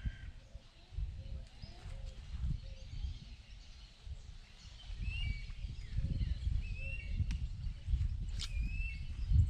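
Several birds chirping in short calls that rise and fall in pitch, over a gusty low rumble. A sharp knock sounds near the end.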